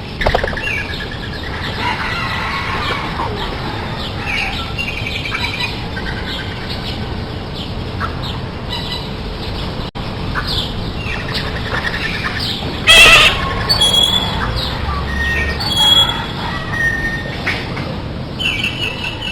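Several birds chirping and calling over steady background noise: many short chirps and trills, with a loud harsh burst about thirteen seconds in.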